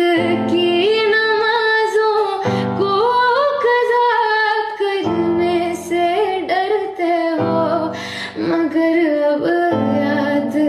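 A woman singing a song in sustained, gliding phrases over instrumental accompaniment.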